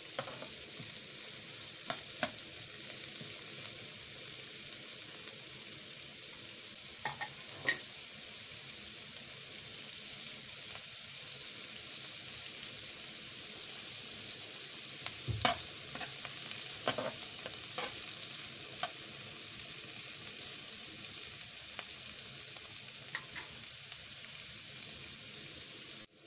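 Shredded cabbage and carrot sizzling in ghee in a metal frying pan, a steady hiss, with a few short clicks and scrapes as a slotted spatula turns them against the pan.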